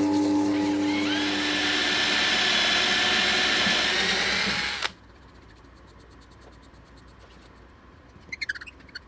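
Electric power tool running with a steady hum. About a second in, a higher whine rises as it works the piece. It cuts off abruptly about five seconds in, leaving a few faint clicks.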